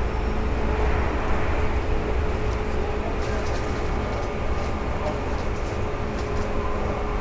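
Seibu 2000 series electric train running, heard from inside the car over the floor: a steady low rumble of wheels on rail with a thin steady hum and no change in speed.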